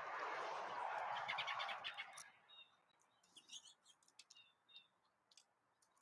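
A loud rushing noise for about the first two seconds, fluttering toward its end, then small songbirds chirping in short, high, scattered notes.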